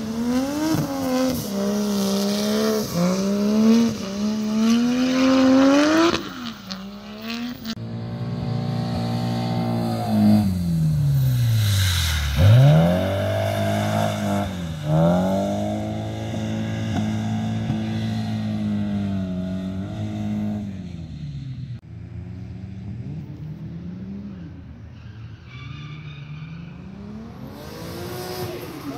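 Drift cars' engines revving hard through a slide, the pitch climbing and dropping again and again as the throttle is worked, with tyre squeal from the sliding tyres. There is a deep dip and sharp climb in engine pitch near the middle, and the sound changes abruptly twice as one car gives way to the next.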